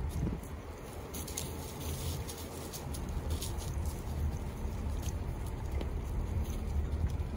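A horse loping through shallow snow, its hooves making soft, irregular crunching thuds under a steady low rumble of wind on the microphone.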